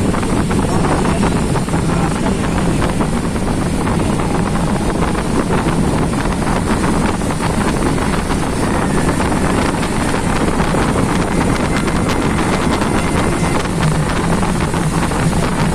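A vehicle running steadily along the road, its engine hum under heavy wind noise buffeting the microphone.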